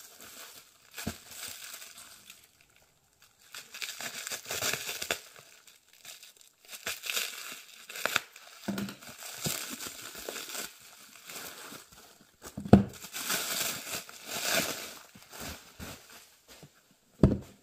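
Plastic stretch wrap crinkling and tearing in several spells as a bundle of old hardback books is unwrapped by hand. A couple of sharp knocks come near the end, as the books are set down on the wooden table.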